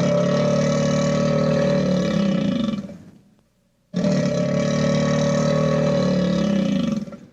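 A cartoon sound effect: a loud, low, steady-pitched growl about three seconds long that dips slightly in pitch as it fades out. After a short gap it plays again the same way.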